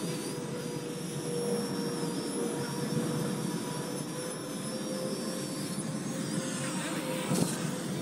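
Parrot Anafi quadcopter's propellers whining steadily as it hovers and drifts low nearby, over a rough rumble of wind on the microphone. A short knock comes near the end.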